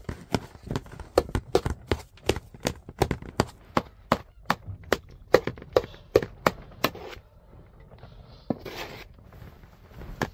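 Quick sharp taps and knocks, about three a second, of a metal spoon working food in an aluminium bowl; they stop about seven seconds in, followed by a brief softer scrape.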